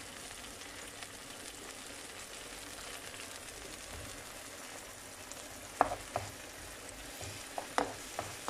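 Diced bell peppers sizzling steadily in olive oil in a frying pan. From about six seconds in, a wooden spoon knocks sharply against the pan several times as they are stirred.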